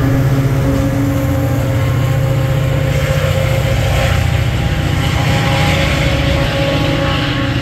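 Old Caltrain diesel locomotive engine running loud and steady: a deep drone with several steady tones above it.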